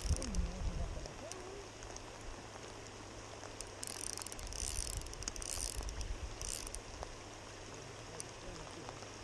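KastKing Zephyr 1000 spinning reel's drag clicking in bursts as a hooked chinook salmon pulls line against it: a short burst at the start, a longer one around the middle and a brief one soon after. A steady low rumble of wind on the microphone runs underneath.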